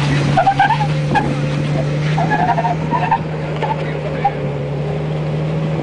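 Jeep Wrangler engine idling with a steady, even low hum.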